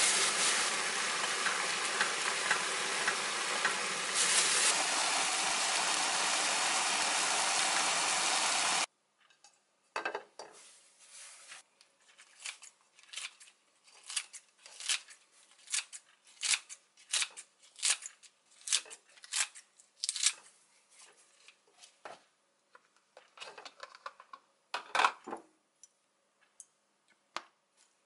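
Bean sprouts, beef and vegetables sizzling in a frying pan, a steady hiss that cuts off suddenly about nine seconds in. Then kitchen scissors snipping leafy greens over a bowl: a run of sharp snips, roughly one or two a second.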